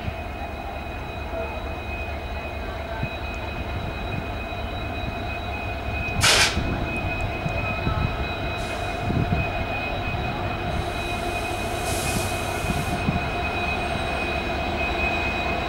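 WDP4 diesel-electric locomotive running as it rolls slowly toward the listener, a steady low rumble with a steady high-pitched whine above it. About six seconds in there is a brief loud hiss, and softer hissing comes twice more later.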